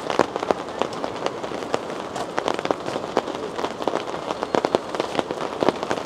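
Rain falling on a Snowline Vistadome camping tarp overhead: a dense, uneven stream of sharp drop taps over a steady hiss.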